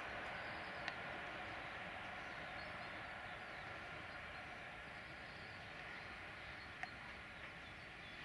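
Distant regional electric multiple unit running past, its rumble slowly fading as it moves away. Two short sharp clicks, one about a second in and one near the end.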